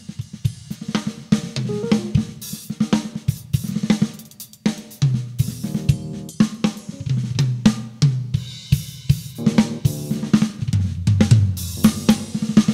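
Drum kit played in a busy, fast fusion groove: snare, hi-hat, cymbals and kick drum, with an electric bass playing low notes underneath.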